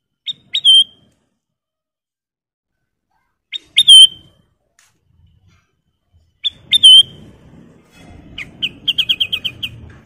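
Kutilang emas, a black-crested, red-throated bulbul, singing three short loud whistled phrases about three seconds apart, each a couple of quick notes ending in a slurred note. Near the end comes a fast run of about eight chirps over a low rumble.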